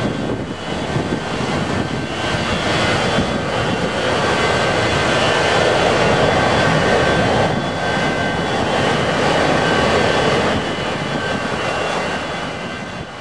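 Pratt & Whitney JT8D low-bypass turbofans of a Boeing 727 freighter running close up: a loud, steady jet rumble with a thin high whine, fading near the end.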